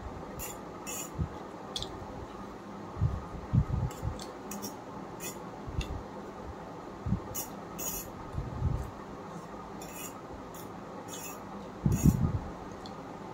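Metal spoon clinking and scraping on a steel plate while chow mein is eaten: scattered light clicks with a few soft thumps, over a steady background hum.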